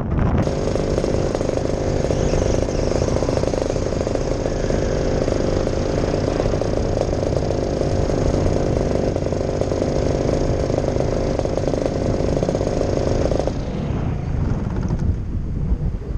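Paramotor engine running steadily at flight power, then throttled off about three-quarters of the way through as the pilot glides in to land, leaving wind rushing over the microphone.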